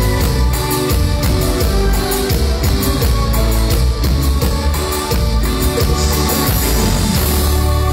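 Live band music through a stage PA, with a drum kit and rhythmic percussion under pitched instruments. About six seconds in, the beat stops and the band holds a long sustained chord with a cymbal wash.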